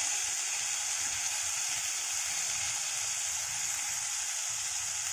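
Steady sizzling of grated Indian gooseberry, small onions and dried red chillies frying in oil in a stainless steel kadai, with a little water added to cook it through.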